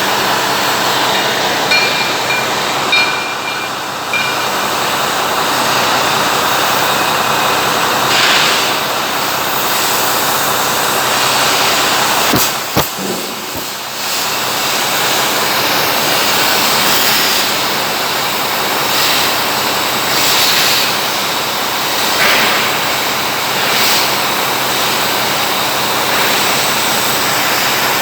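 Steady, loud machine noise: a continuous even roar with a hissy top and no clear pitch. A couple of sharp clicks come about twelve to thirteen seconds in.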